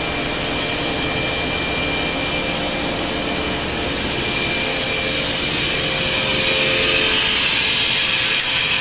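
Steady mechanical whir and hiss of the Okuma & Howa Millac 438V CNC vertical machining center running under power, with a thin steady whine in it. The hiss grows louder about six seconds in.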